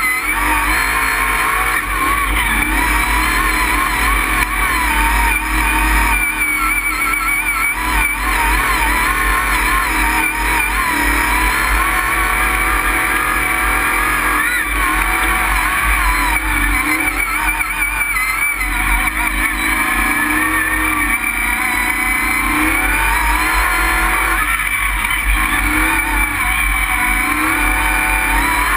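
Mud truck's engine heard from inside the cab, running hard and revving up and down as the truck drives through the mud pit, with a heavy low rumble. The revs rise and fall several times in the second half.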